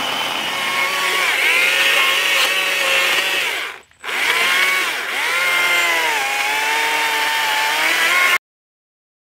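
Battery-powered chainsaw running and cutting through a small log, its motor whine sagging in pitch as the chain bogs in the wood and then recovering. It stops briefly about four seconds in, starts again, and cuts off abruptly near the end.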